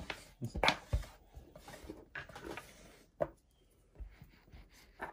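Light knocks and taps of plastic toy tools and hands on a tabletop while kinetic sand is stamped and pressed. A quick cluster of knocks comes in the first second, one sharp click comes a little after three seconds, and quiet rubbing fills the gaps.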